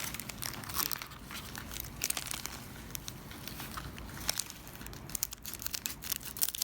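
Trading card pack wrappers crinkling and tearing as packs are opened and the cards handled, in a run of short irregular crackles.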